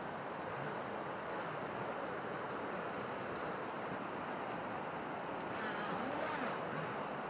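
Creek water rushing steadily over rocks. Near the end, the electric motor of a Pro Boat River Jet RC jet boat briefly rises and falls in pitch as the boat powers through the water.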